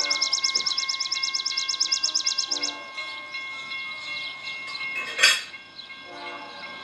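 Rapid bell ringing, about ten strokes a second, that stops abruptly under three seconds in, over steady ringing tones. A short loud burst follows a little after five seconds.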